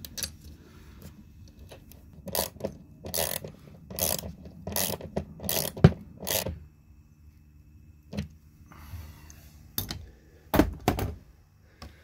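Hand ratchet wrench turning down a bolt with a lock washer through a seatbelt anchor plate: a run of clattering ratchet strokes, about two a second for some four seconds, the sharpest about six seconds in. A few separate metal knocks follow near the end.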